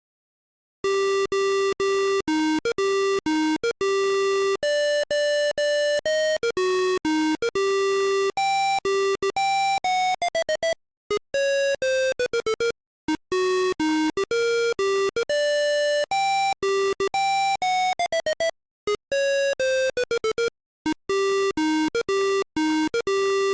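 PC speaker beeper playing a one-voice melody of beeping notes, with several quick downward pitch slides and a few short breaks; it starts about a second in and stops right at the end.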